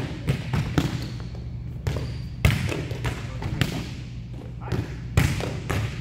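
Volleyballs being hit and bouncing on a gym floor: a string of sharp slaps and thuds, about one or two a second, over a steady low hum.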